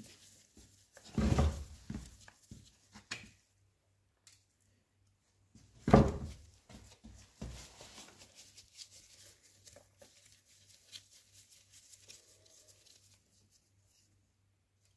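A screwdriver scraping and knocking against the leadscrew shaft and gear housing of a Sajo milling machine table during disassembly. A cluster of loud metallic knocks and scrapes comes about a second in, and a single sharp clank at about six seconds. Lighter scraping and clicks follow and die away shortly before the end.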